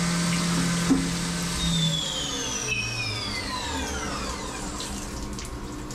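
CNC mill spindle running under flood coolant at the end of a chamfer toolpath. About two seconds in it spins down, its whine falling in pitch over about three seconds, while the coolant keeps splashing.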